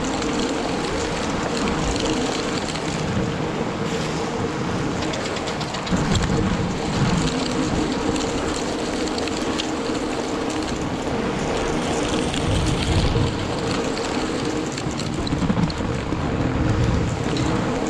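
Two-roller snow trail groomer being towed by a fatbike over packed snow: a steady rolling and scraping noise of the rollers and tyres on snow, with a faint steady hum.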